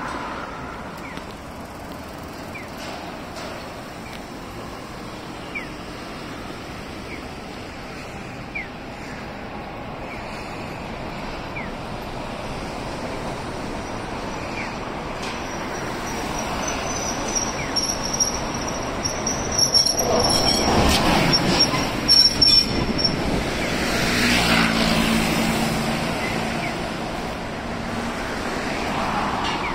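Old ex-Kobe city tramcar 582 running along street track towards the listener and passing by, over steady road traffic. A thin high wheel squeal sets in about halfway and lasts several seconds. It comes with a few loud knocks as the car draws near.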